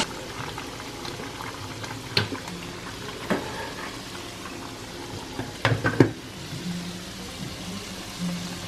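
Breaded chicken pieces frying in a pan of oil: a steady sizzle, broken by a few sharp clicks and knocks, the loudest pair about six seconds in.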